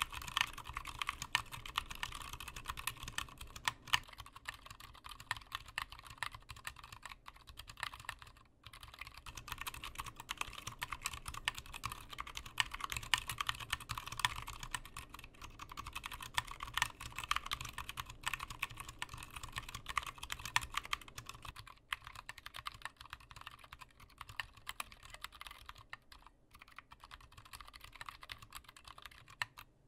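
Steady, fast typing on a computer keyboard: a dense run of key clicks with a brief pause about eight seconds in, picked up raw by a desk microphone with no filters applied.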